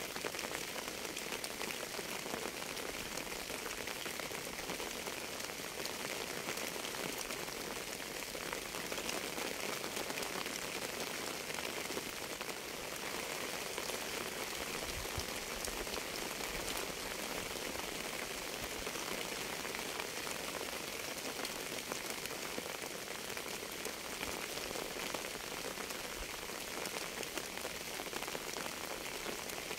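Steady rain falling, an even wash of many drops with no letup.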